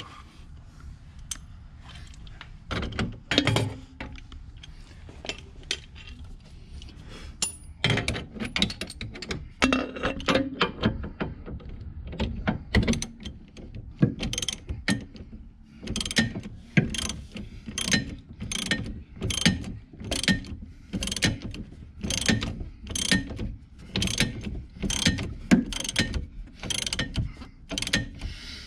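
Ratchet wrench clicking as it tightens a 14 mm suspension bolt: scattered clicks at first, then from about halfway a steady run of strokes, roughly one every 0.7 seconds.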